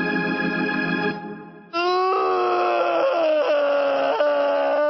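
A held organ chord that fades out about a second in, then a cartoon giraffe's voice wailing in long, drawn-out crying notes that slide slowly down in pitch, broken by short gasps.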